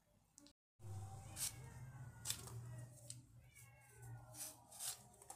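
Handheld vegetable peeler scraping the skin off a raw potato in short, sharp strokes, starting about a second in, over a low steady hum. Thin squeaky tones that fall in pitch come and go beneath the strokes.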